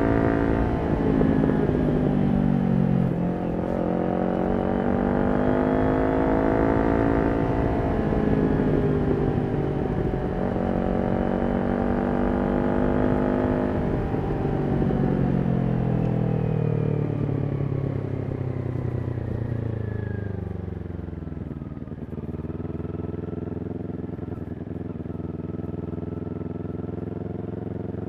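Kawasaki Ninja 400's parallel-twin engine through a Yoshimura exhaust, riding. The revs climb twice under acceleration, then wind down slowly over several seconds and settle into a steadier, lower note near the end.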